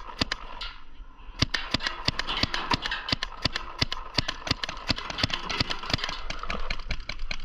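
Paintball markers firing rapidly, a fast string of sharp pops about seven a second, with a short pause about a second in.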